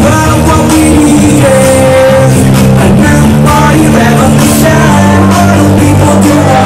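Live hip hop performance over a club sound system: a loud beat with melodic backing and a rapper's vocals through a microphone.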